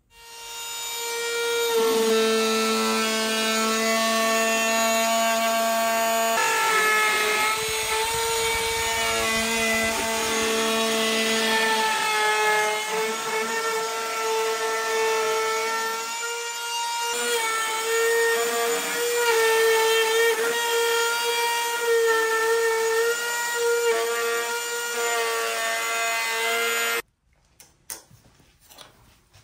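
Compact router with a bearing-guided bit whining at high speed as it trims the edge of a cured epoxy-cast skateboard deck. It spins up over the first second or so, the pitch dips briefly a few times as the bit bites, and the sound cuts off abruptly near the end.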